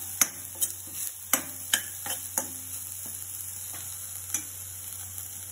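A spoon stirring soaked dal, onion and chilli frying in oil in a pan, clinking and knocking against the pan about five times in the first two and a half seconds, over a steady sizzle of the hot oil.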